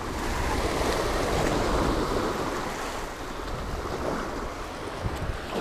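Surf washing over and between the rocks of a jetty. It swells during the first couple of seconds and then eases off, with wind rumbling on the microphone.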